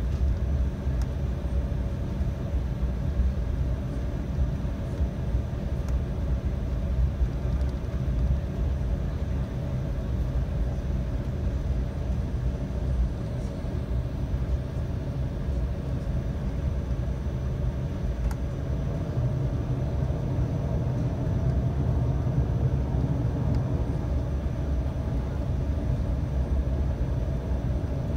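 Steady cabin rumble inside an Embraer 195 airliner from its GE CF34 turbofans and the airframe, heard from a window seat near the rear, deep and even in level throughout.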